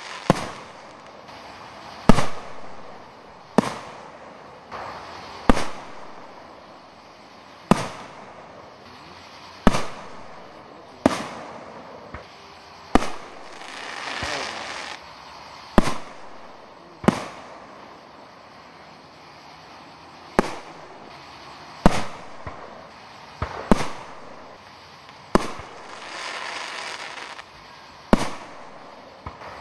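Aerial firework shells bursting in a steady series, a sharp bang about every one and a half to two seconds, each quickly fading. Twice a longer hiss swells up between the bangs.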